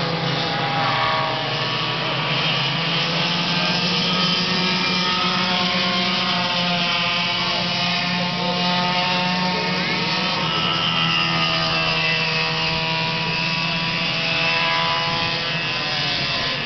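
Several go-kart engines running together at race speed, their overlapping pitches drifting up and down, over a steady low hum.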